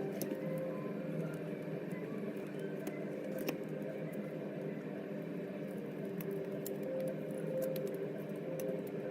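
A steady low hum with several held tones, with small clicks and taps scattered through it; one sharper click comes about three and a half seconds in.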